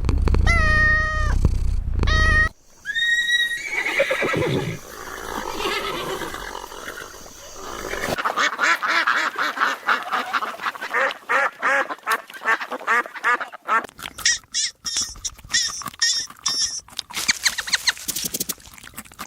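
A run of animal calls edited one after another: meowing at the start, then the calls of other farm animals, including a long wavering stretch in the middle and fast choppy calls near the end.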